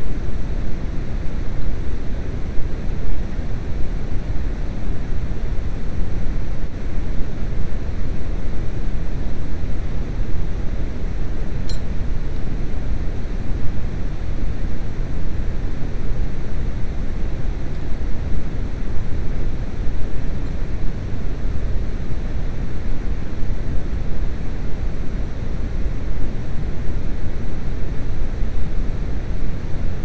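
Steady low rumbling noise, like wind or handling noise on the microphone, with one short high click about twelve seconds in.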